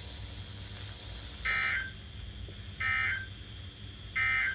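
NOAA Weather Radio SAME end-of-message code: three short, identical bursts of warbling digital data tones about 1.4 seconds apart. They mark the end of the alert broadcast, here a tornado watch. A steady low hum runs underneath.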